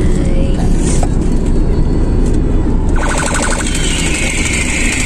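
Steady road and engine rumble inside a moving car's cabin. About three seconds in comes a brief burst of rapid electronic pulsing.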